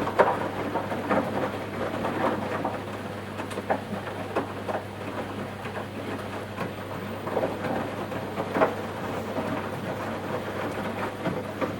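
Washing machine running, laundry and water sloshing and thudding irregularly in the turning drum over a steady low motor hum.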